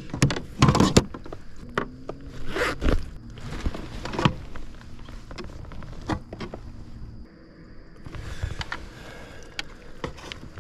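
Scattered scrapes, clicks and rustles of gear being handled on a fishing kayak, with a faint low hum for a few seconds in the middle.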